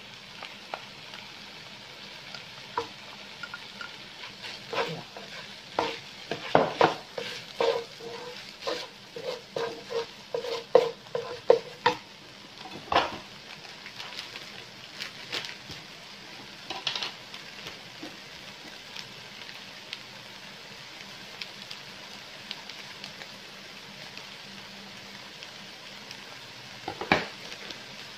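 Minced chicken, diced potato and onion sizzling in a granite-coated non-stick wok, with a plastic slotted spatula stirring and scraping the pan in a quick run of clicks and scrapes during the first half, then only the steady sizzle. One louder knock comes near the end.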